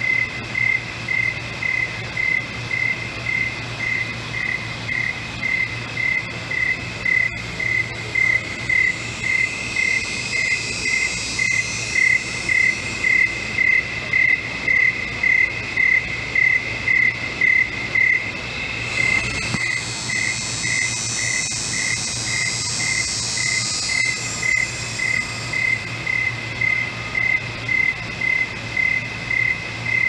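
Crickets chirping: one near cricket chirps at an even pace of about two chirps a second over a continuous insect trill. A higher, brighter trill joins in for several seconds past the middle.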